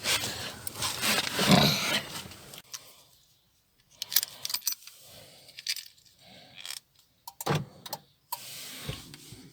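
A bunch of car keys jangling for about two and a half seconds, then scattered light clicks and knocks.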